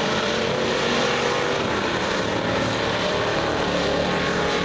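Several dirt-track race cars running at speed around a clay oval, their engine notes overlapping in a steady drone that rises and falls as the cars pass.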